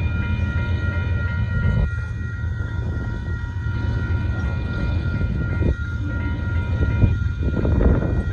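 Diesel locomotives of a Union Pacific gravel train running with a steady deep rumble and a thin, steady high whine above it. The train is ready to depart. The sound grows louder and rougher about seven seconds in.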